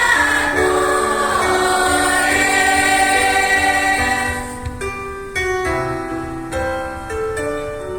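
Choir singing held notes with keyboard accompaniment; the voices stop a little past halfway and the keyboard carries on alone with separate, evenly struck notes.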